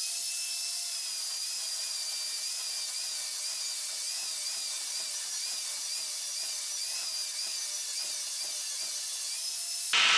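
Electric angle grinder grinding the steel axle truss: a steady high whine whose pitch wavers slightly as the disc is pressed into the metal. It gives way to a louder rush right at the end.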